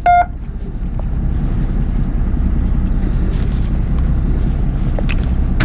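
Fishing boat's engine running steadily, a low rumble with wind buffeting the microphone. A short electronic beep sounds right at the start.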